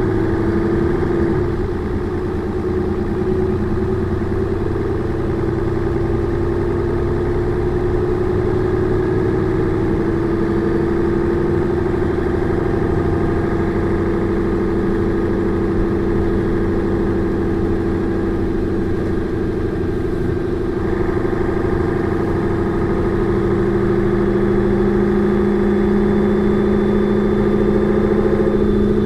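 Mercedes-Benz O405N2 city bus's diesel engine running steadily, with a strong steady whine that rises slightly in pitch over the first dozen seconds. Near the end a lower hum grows stronger and the sound gets a little louder.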